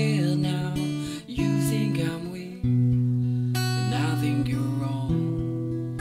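Acoustic guitar strumming sustained chords, with fresh strokes about one and a half, two and a half and five seconds in.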